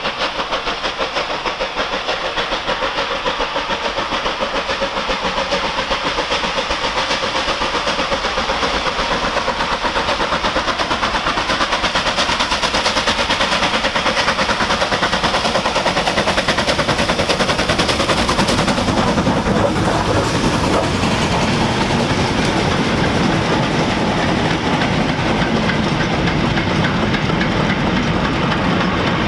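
Bulleid unrebuilt Battle of Britain Pacific three-cylinder steam locomotive working hard with a goods train: a rapid, steady exhaust beat grows louder as it approaches and passes about two-thirds of the way through. The clatter and rumble of the goods wagons' wheels over the rail joints follows.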